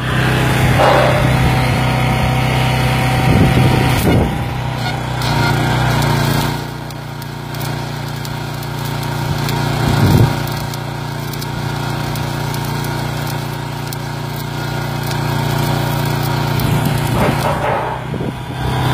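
Kovo EW240G engine-driven welding generator's engine running steadily under load, with the crackling sizzle of a 7018 stick-electrode arc welding at 240 A DC.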